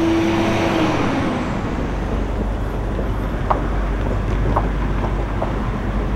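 Low, steady rumble of a passing vehicle, with a tone that falls away about a second in and four sharp clacks about a second apart in the second half.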